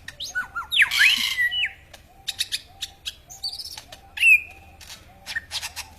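Lyrebird in a long mimicry song: a steady run of short low notes about two a second under sharp clicks, whistles sliding up and down, and harsh rasping bursts, loudest about a second in and again near four seconds.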